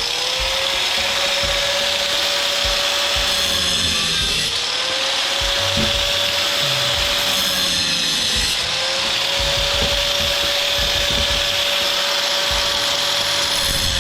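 A handheld power cutting tool running at high speed, cutting through the metal clips on an electric motor's housing. Its whine dips in pitch and recovers each time it bites, about every four seconds.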